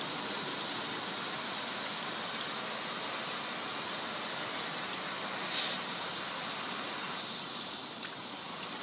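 Water spraying steadily from a multi-pattern garden hose nozzle set to its "flower" pattern, an even hiss. There is a brief louder spurt about five and a half seconds in, and the spray grows louder for about a second from seven seconds in.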